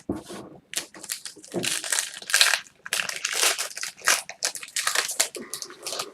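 Trading card pack wrapper crinkling and crackling in the hands, a burst of irregular rustling as the next pack is opened.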